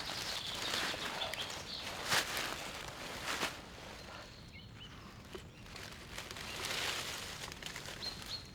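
Footsteps crunching and rustling over the forest floor in irregular surges, with faint short bird calls.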